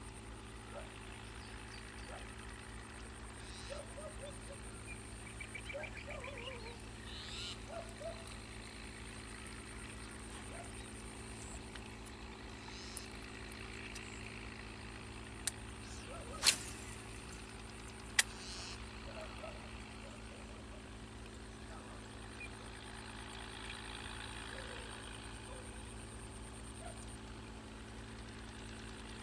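Outdoor ambience: a steady low hum and a continuous high thin buzz, with scattered short animal calls. About halfway through come three sharp clicks, the middle one the loudest.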